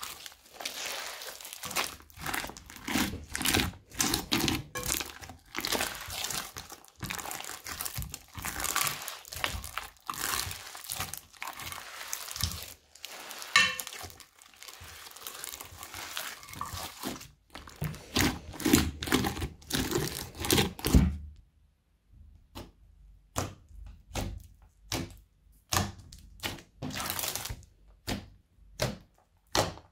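Bead-filled crunchy slime being squeezed and kneaded by hand, giving dense crackling and squishing. About two-thirds of the way in this stops and gives way to separate short squishes about once a second, as fingers poke into the slime laid flat.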